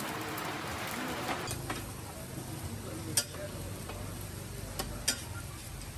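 Egg omelette frying in a wide flat pan with a sizzling hiss. Then a metal spatula scrapes and clinks against the pan a few times as it cuts the omelette.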